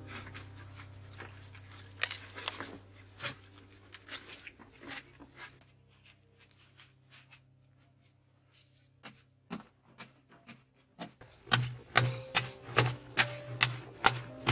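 A short hand-held digging tool striking and chipping into a packed-earth wall, about two or three dull strikes a second from about two-thirds of the way in. Before that there are scattered light knocks and scrapes.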